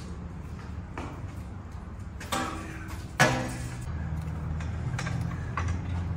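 Metal knocks and clunks from a manual transmission being worked up into place under the car on a screw-type transmission jack, the loudest a sharp clunk about three seconds in.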